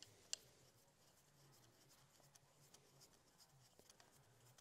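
Near silence with faint handling ticks as a threaded air rifle valve part is unscrewed by hand, and one sharper click about a third of a second in.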